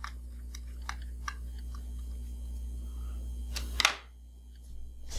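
A small screw being driven into a plastic housing with a precision screwdriver: faint scattered clicks and creaks as the thread bites into the plastic, then a single louder knock a little before the end.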